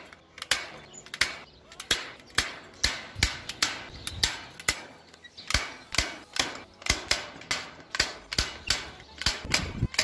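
Hand-operated staple gun firing staples through wire aviary mesh into a timber post: a sharp snap about two to three times a second, over and over.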